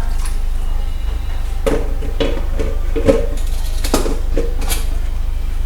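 Dishes clinking and knocking together as they are handled during hand-washing, about seven sharp clinks with a short ring, over a steady low rumble.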